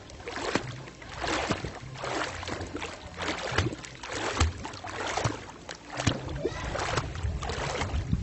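Water splashing in repeated surges, roughly one a second, from swimming strokes in a river.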